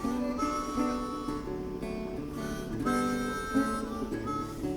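Background music: acoustic guitar with a melody of held notes.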